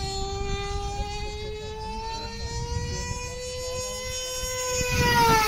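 RC speed delta model plane's motor and propeller whining steadily in flight. The pitch creeps up and the sound grows louder as the plane approaches, then the pitch drops as it passes by near the end. Low wind rumble sits underneath.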